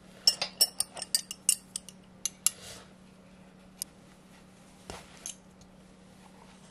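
A quick run of about a dozen short metallic clinks in the first two and a half seconds, then three scattered clicks: steel end-cutting nippers knocking against a steel wire draw plate as they grab a fine wire to pull it through the plate.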